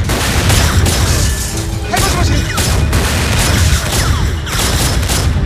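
Film sound of a gunfight: rapid handgun fire, many shots in quick succession, over a loud music score.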